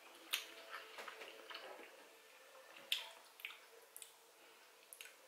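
Faint wet chewing and mouth sounds from someone eating shrimp, with a handful of small sharp clicks scattered through.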